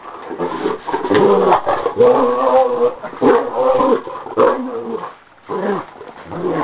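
Great Dane vocalizing: a run of loud, pitched calls in quick succession, with a short break a little after five seconds.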